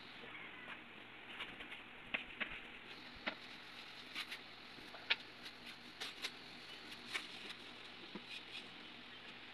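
Flat-pack table panels being handled and wiped with a sponge: irregular light taps and knocks of board against board and packing, with soft rubbing, over a faint steady hiss.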